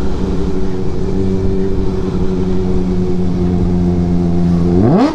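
Motorcycle engine running at a steady pitch while riding along, then a sharp throttle rev near the end that sends the pitch shooting up.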